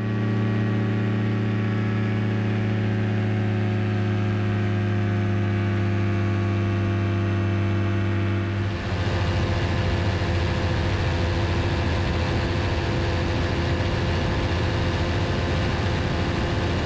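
Rebuilt Rotax engine of an ultralight running steadily in flight. About nine seconds in, the sound turns rougher, with more wind hiss over the engine note.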